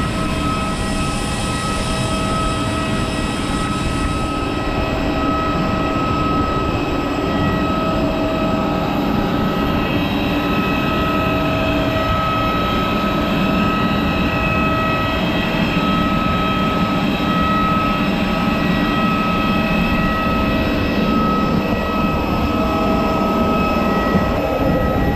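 Steady whine and rush of jet aircraft turbines on an airport apron: a broad roar with several high steady tones held over it.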